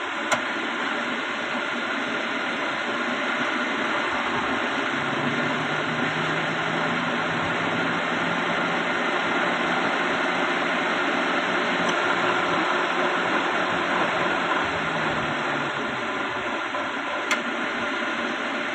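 Car engine idling steadily, with the air-conditioning compressor's clutch engaged although the compressor is switched off. Two sharp clicks cut through the running noise, one right at the start and one near the end.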